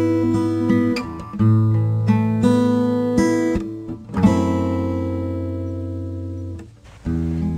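Acoustic guitar playing a song's instrumental intro: plucked notes and strummed chords, with one long chord left ringing and fading in the second half before the playing picks up again near the end.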